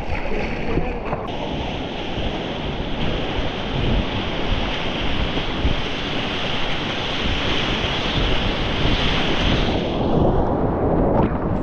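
Whitewater rapids rushing, with wind buffeting the microphone. The higher hiss of the water drops away about ten seconds in, leaving a lower rush.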